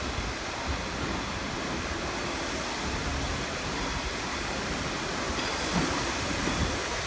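Train at the station making a steady rushing noise, without distinct beats or strokes.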